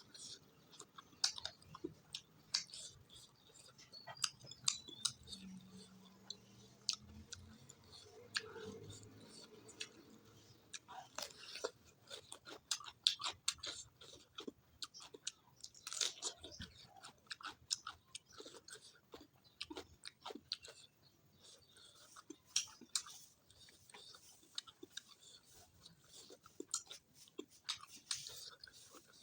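A person eating close to the microphone: steady chewing with crunchy bites and irregular wet mouth clicks and crackles.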